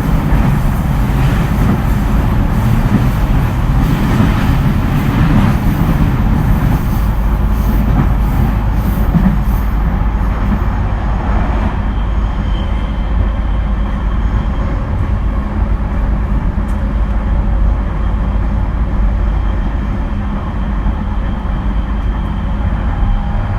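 JR East E231 series electric commuter train running at speed: steady wheel-and-rail noise with clatter over the track, busier in the first half and smoother later, when a faint high whine joins in.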